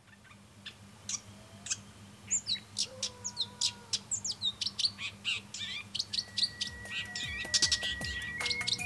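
Many birds chirping and calling, fading in: short high chirps, some sliding down in pitch. About six seconds in, a held note of background music starts underneath.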